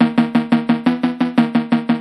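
Background music cutting in abruptly: a pitched note repeated in quick, even pulses, about five or six a second.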